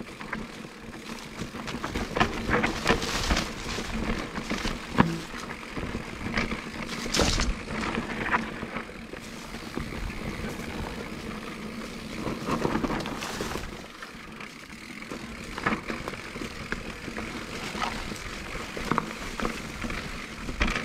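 Canyon Torque:ON electric mountain bike riding fast down a dirt forest singletrack: steady tyre and rolling noise broken by frequent irregular knocks and rattles as the bike goes over the rough trail.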